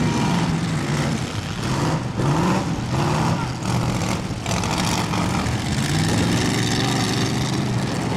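Demolition derby cars' engines running, with pitch rising and falling as they rev up and ease off.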